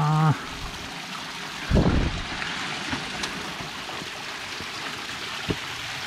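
Mountain stream running over rocks, a steady rush of water. A short low thump about two seconds in.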